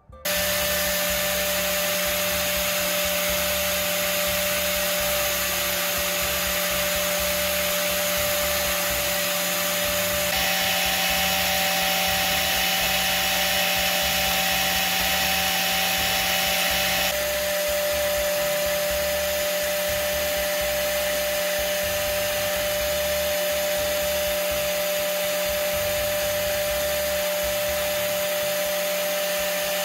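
Electric power tool motor running at a steady speed with a constant whine, used in sharpening a drill bit. For several seconds in the middle the tone shifts and a higher hiss joins in.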